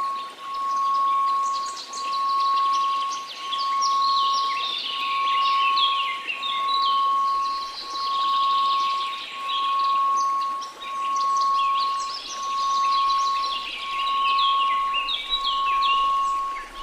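Steady 1098 Hz sine tone, swelling and fading about every second and a half, over faint white noise, with many birds chirping throughout.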